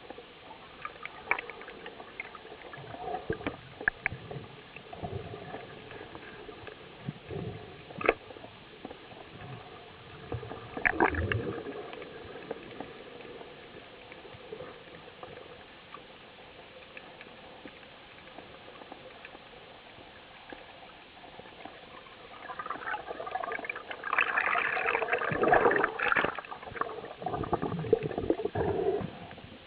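Underwater ambience with scattered sharp clicks and knocks. Near the end comes a louder, dense rush of bubbling and churning water as a freediver in long fins kicks upward.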